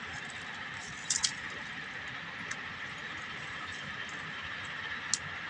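Dry twigs and brush crackling as a hand works through them, with a few sharp snaps about a second in and one more near the end, over a steady high-pitched hum.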